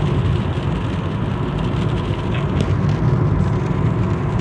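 Steady road and engine noise inside a moving car's cabin, heaviest in the low rumble.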